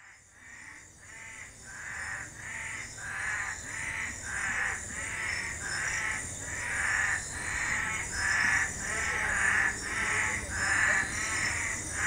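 A bird calling over and over in an even rhythm, about two calls a second, fading in over the first few seconds, above a steady high hiss.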